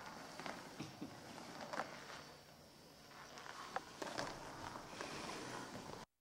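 Soft, scattered footsteps and small knocks of performers moving about a stage floor, over faint room hiss; the sound cuts out completely right at the end.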